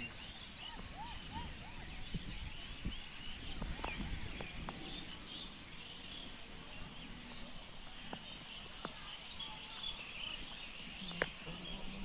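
Outdoor ambience of many small birds chirping, with short calls scattered all through, over a low steady rumble.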